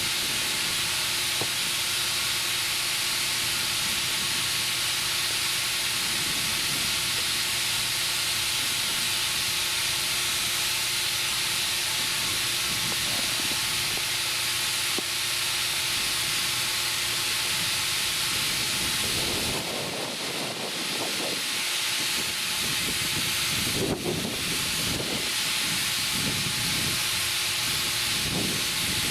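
Compressed air hissing steadily as it fills a large 20.8R38 tractor inner tube, with a couple of brief lower noises about twenty and twenty-four seconds in.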